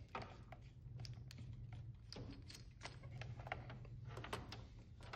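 Faint, irregular small clicks and taps of plastic cable connectors and cable being handled on a metal workbench as the trolling motor's foot-pedal cable is unplugged. A steady low hum sits underneath.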